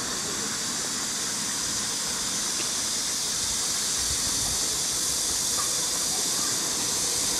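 Wind buffeting the camcorder's microphone, an uneven low rumble, over a steady high hiss of outdoor ambience.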